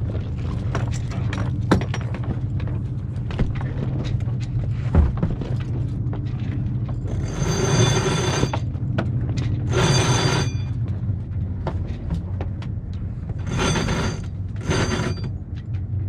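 Sailboat rigging being worked on deck: scattered light clicks and knocks of lines and hardware, then four short bursts of harsh rasping a few seconds apart. A steady low hum runs underneath.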